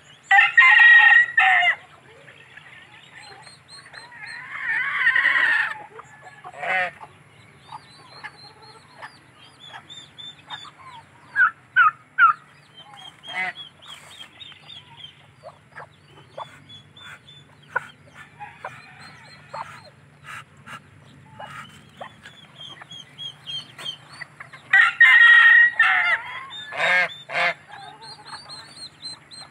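Backyard poultry calling: a rooster crows twice, once right at the start and again near the end, domestic geese honk in short calls, and chicks peep faintly throughout.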